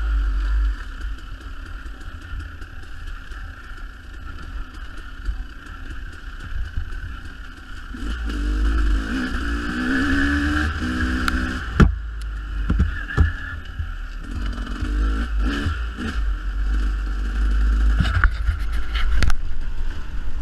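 Dirt bike engine running while riding a rough trail, the revs climbing and falling about eight seconds in. Sharp knocks and rattles from the bike over bumps come a few times in the second half.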